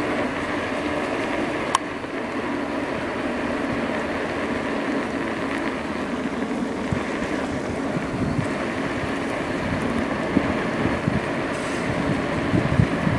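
A2B Metro electric bike riding along a road: a steady mix of motor and tyre noise, with a single sharp click about two seconds in and wind buffeting the microphone toward the end.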